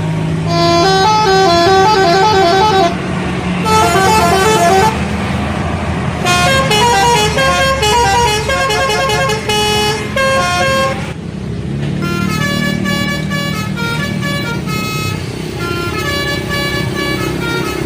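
Indonesian bus telolet horn playing quick melodic tunes, the notes hopping up and down in pitch, in several bursts with short breaks between them, over the bus's engine running.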